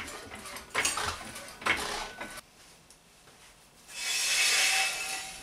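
Hydraulic floor jack being pumped to lift the car, its handle and ratchet clanking in about three strokes under a second apart, followed after a pause by about a second of hissing, scraping noise near the end.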